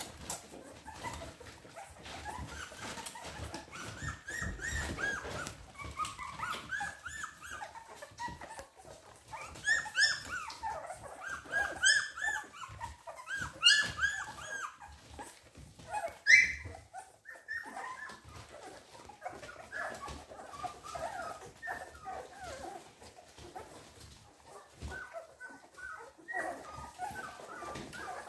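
A litter of American Staffordshire Terrier puppies squeaking and whimpering as they jostle for the mother's teats while nursing: a run of short, high calls, loudest in the middle.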